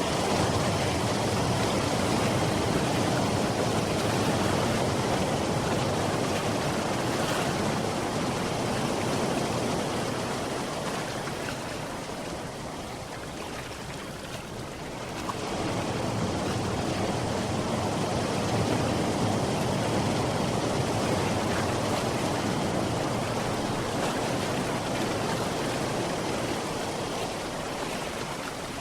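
Sea surf: a continuous rush of breaking and washing waves that eases off about twelve seconds in and swells up again a few seconds later.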